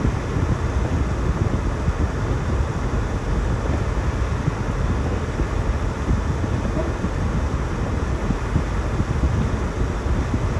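Steady low rumble and hiss of a vehicle on the move: road and wind noise.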